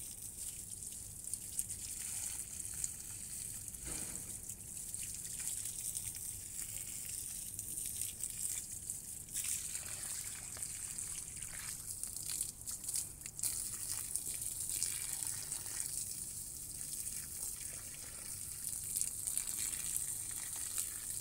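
Water from a garden hose pouring and trickling into the soil basin around the base of a lemon tree, a steady running-water hiss, with a few brief knocks around the middle.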